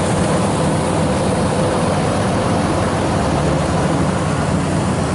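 Rice combine harvester's engine running steadily at close range, a constant low hum under a dense mechanical noise.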